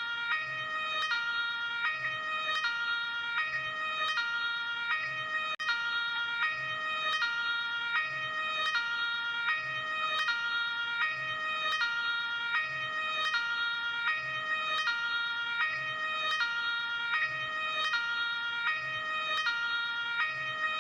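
Luxembourg ambulance two-tone hi-lo siren alternating steadily between a high and a low note, a full high-low cycle about every second and a half. There is a momentary cut in the sound about five and a half seconds in.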